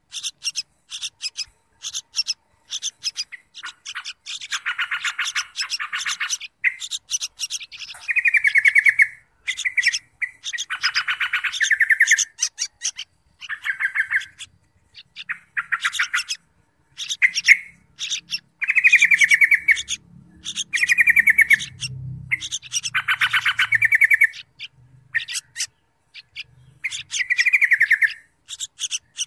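Birds calling: a fast run of short high chirps mixed with repeated harsher calls of about a second each, some coming in quick pairs.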